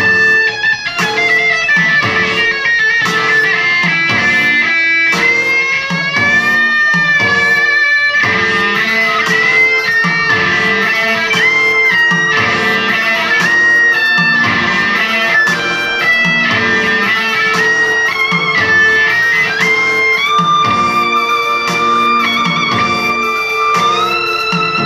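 Amplified violin playing a melody with pitch slides over a backing track that carries a steady beat and a repeating plucked-string pattern.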